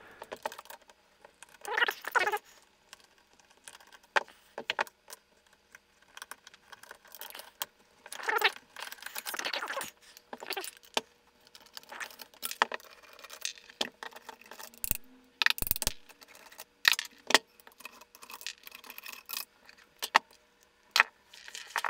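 An aluminium photomultiplier housing and its small metal parts being handled and taken apart by hand: irregular metallic clinks, rattles and short scrapes, with a couple of dull knocks about fifteen seconds in.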